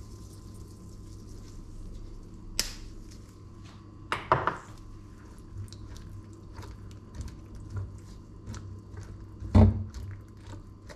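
Gloved hand tossing diced raw eggplant in a stainless steel bowl: soft crunching and squishing of the pieces with many small clicks, a clatter about four seconds in and a loud knock near the end.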